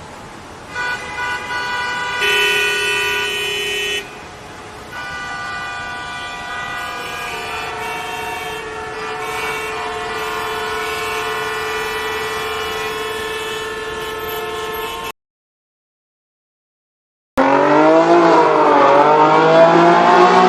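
Car horns honking, several steady horn tones at different pitches overlapping and changing for about fifteen seconds. After a short gap, a loud new sound starts near the end, its pitch sliding up and down.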